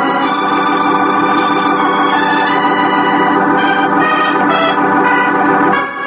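Dramatic organ music: a loud, sustained organ chord with some upper notes shifting, falling away near the end. It is a musical bridge between scenes of an old-time radio drama.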